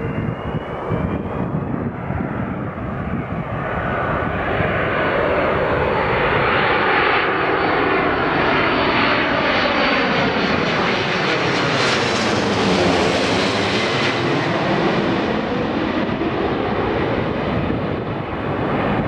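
Airbus A330-200 airliner's jet engines on landing approach, gear down, flying low directly overhead. The engine noise and a high whine build to their loudest as it passes over, with a swirling, phasing sweep in the sound, then begin to fade as it moves away.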